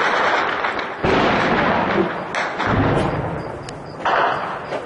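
Heavy weapons fire and explosions from street fighting: sudden blasts about a second in, near the middle and near the end, each trailing off in a long rumbling echo, with a few sharp cracks between.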